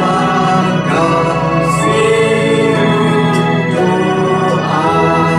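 A hymn sung to organ accompaniment: held organ chords whose bass note changes about two seconds in and again near the end, with singing voices over them.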